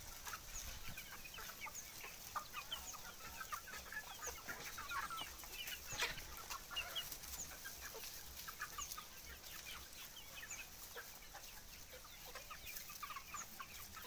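A flock of desi chickens clucking and calling, many short overlapping calls, with a single sharp click about six seconds in.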